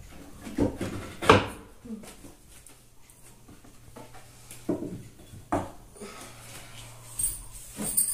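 Hands searching and moving things on top of a wooden wardrobe: a handful of separate knocks and clunks of wood and objects, the loudest about a second in.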